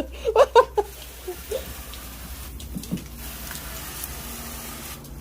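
Shower water spraying steadily onto a dog during its bath, an even hiss that sets in about a second in after a brief voice.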